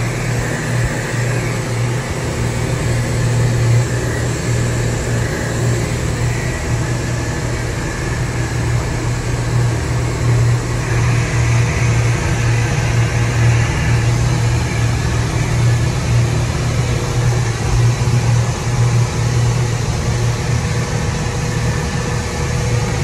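A fishing boat's engine running steadily at cruising speed: a constant low drone, with a rush of wind and water from the hull.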